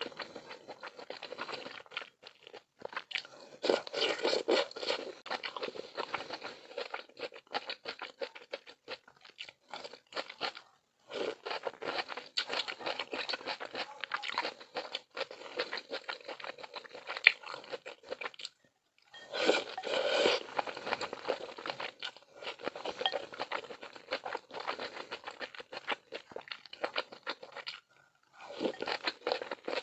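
Close-miked chewing of milk malatang: wet, crunchy mouth and bite sounds in runs of several seconds, broken by short pauses.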